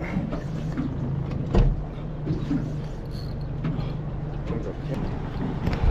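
Small boat's outboard motor running at idle, a steady low hum, with a single knock about one and a half seconds in.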